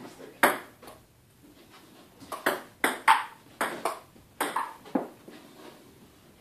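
Table tennis rally: a ping pong ball clicking sharply off paddles and a Sportcraft table, about a dozen hits, two early ones and then a quick back-and-forth run that stops about five seconds in.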